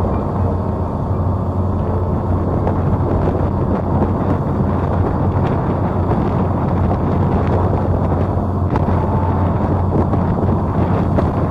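Small harbour ferry's engine running with a steady low drone as the boat crosses, with wind buffeting the microphone.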